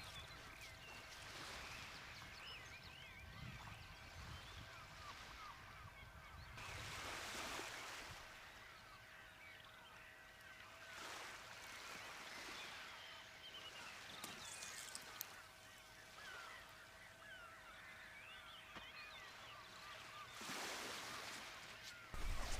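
Faint chorus of birds calling at dawn, many short overlapping calls, with a few brief rushes of noise in between.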